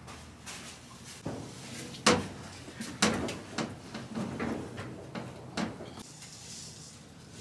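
A run of knocks and clunks from things being handled at a top-loading washing machine, the loudest about two seconds in, then lighter knocks until a little past halfway.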